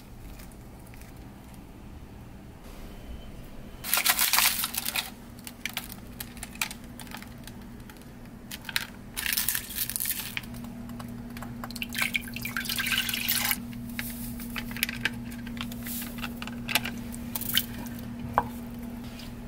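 Kitchen prep handling noises: bursts of rustling and crinkling, small wet liquid sounds and light utensil knocks. A steady low hum joins about halfway through.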